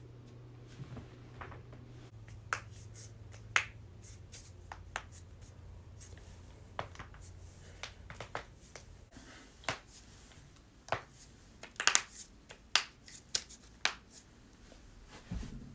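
Human joints cracking: knuckles and fingers pulled and pressed to pop them, and a neck twisted by hand to crack it. A series of irregular, sharp pops, the loudest in a quick cluster about twelve seconds in.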